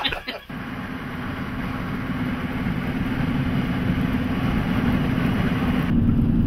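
A car driving at road speed: steady engine and tyre noise with a low hum, slowly growing louder and turning duller about six seconds in. A burst of laughter cuts off in the first half second.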